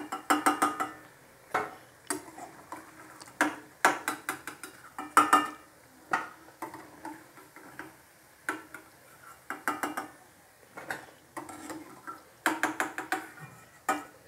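A perforated steel skimmer clinks and scrapes against a steel kadai while lifting fried bondas out of the oil. The clinks come in irregular clusters of sharp metallic ticks, each ringing briefly.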